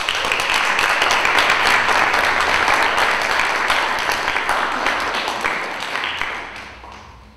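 Audience applauding: dense clapping that starts at once and fades away over the last couple of seconds.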